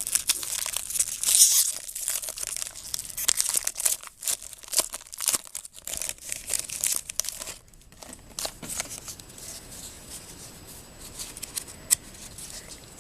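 Foil wrapper of a baseball card pack being torn open and crinkled for about seven seconds, followed by lighter rustling and flicks of cards being handled.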